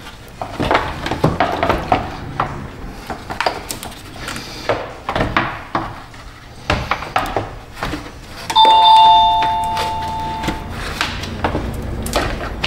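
Plastic clicks and knocks of a car's electric radiator cooling fan assembly being worked down into place against the radiator. About two-thirds of the way in comes a loud two-tone ringing chime that fades over about two seconds.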